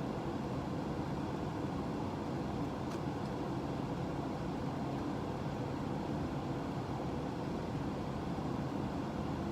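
Steady low whirring noise of running equipment, with one faint tick about three seconds in.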